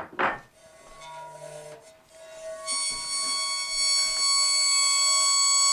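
Violin bow drawn across the edge of a square metal plate. After a couple of seconds of weak, wavering lower tones, the plate locks onto a loud, steady high singing note with many overtones: C sharp two octaves above middle C, the mode that shakes the sugar on it into an X-shaped pattern.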